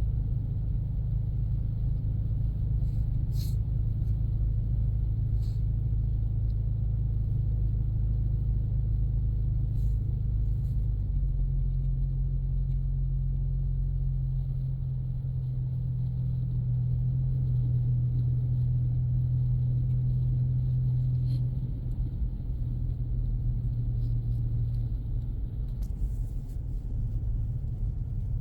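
2024 Ford Mustang EcoBoost's turbocharged four-cylinder and its tyres on a snow-covered road, a steady low drone as the car cruises at the speed limit. The engine note shifts about eleven seconds in and eases off a little past the twenty-second mark.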